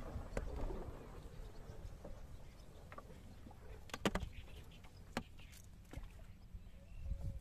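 Wooden boat being poled by hand through floating water hyacinth, the bamboo pole knocking against the wooden hull a few times, loudest about four seconds in, over a low steady background noise.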